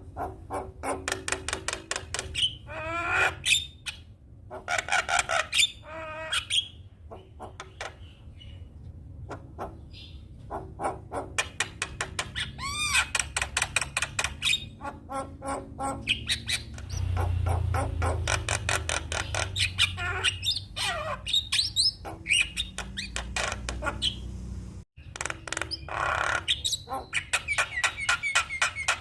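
Javan myna (jalak kebo) singing a long, varied song of fast chattering clicks, harsh squawks and rising and falling whistles, with a low rumble under it for several seconds past the middle.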